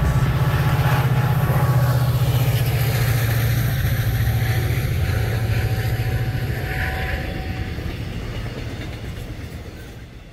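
Locomotive-hauled passenger train passing by, a steady low drone from the locomotive and the rumble of the coaches' wheels, fading out near the end.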